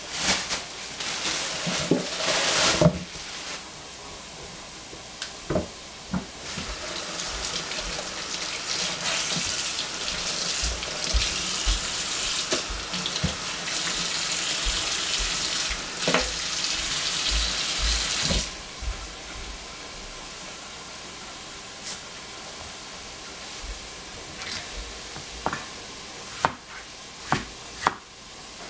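Water running from a kitchen tap, briefly near the start and then for about twelve seconds, with scattered short knocks near the end.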